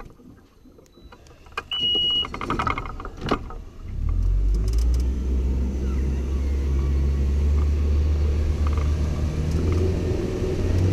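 An outboard motor on an aluminium jon boat comes on about four seconds in and runs steadily at a low, even pitch as the boat gets under way, after a short electronic beep and a few clicks.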